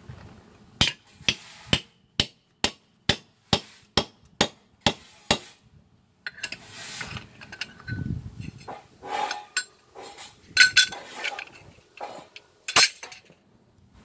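Hand hammer driving steel shims tight between a concrete foundation pier and the slab, sharp metallic strikes: about eleven hits at roughly two a second, then shuffling and lighter clinks with two more hard strikes near the end. The shimming locks the raised slab onto the pier.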